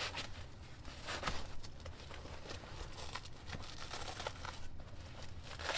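Fabric rustling and scraping as a swimmer-cut rifle plate is worked into the stretch-panel plate pocket of a JPC 2.0 carrier, with small knocks of the plate against the carrier. The stretch panels make it a tight fit.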